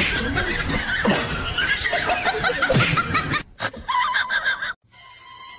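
People laughing in quick, high giggles, cut off abruptly about three and a half seconds in. A much quieter stretch follows, with a faint thin steady tone.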